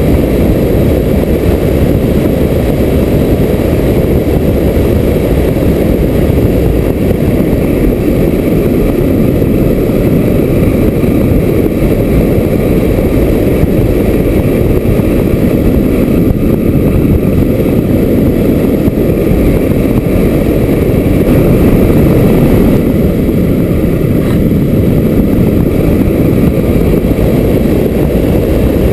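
Loud, steady, low rumble of wind rushing over a camera riding on a 4 m ASW 20 model glider in flight, with no motor tone.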